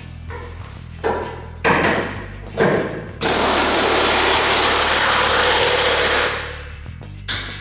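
Pneumatic impact wrench running down a truck-bed mounting bolt: three short bursts, then a long run of about three seconds that tapers off, and one more short burst near the end.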